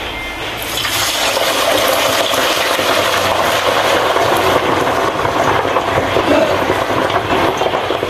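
Pork tumbong (intestine) deep-frying in a pot of hot oil, sizzling and crackling hard. It builds over the first second after the meat goes in, then holds steady.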